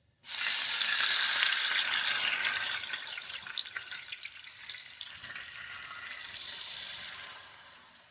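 Water poured into a frying pan of hot ghee with cumin and spices, sizzling as it hits the hot fat. The sizzle starts suddenly about a quarter second in and slowly dies down over the following seconds as the pan cools.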